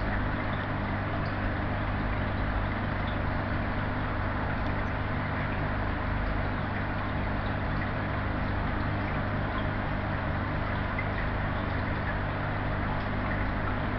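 Aquarium equipment running steadily: a low electrical hum with an even hiss over it, typical of an air pump or filter.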